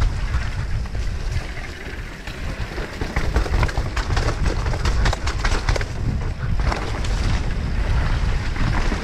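Wind buffeting the microphone as a mountain bike descends a trail at speed, a steady low rumble. A run of sharp rattles and clatters from the bike over rough ground comes a few seconds in.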